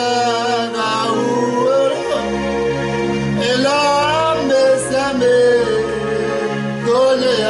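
A man singing a French hymn over instrumental accompaniment of held chords, with a low bass coming in about two seconds in.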